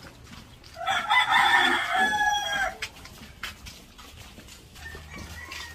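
A rooster crowing once, a loud call of about two seconds that begins nearly a second in and drops in pitch at the end.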